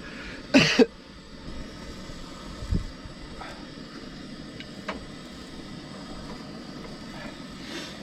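A short breathy vocal grunt under a second in, then a steady hiss with a dull thump around three seconds and a couple of light clicks, as food is handled.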